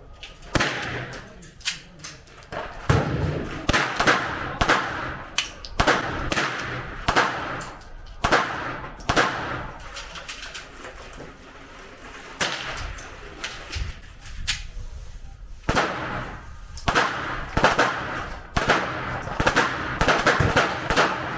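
Pistol shots at a shooting range: a long run of sharp reports at uneven spacing, often bunched into quick strings of several shots. Each shot has a short echoing tail.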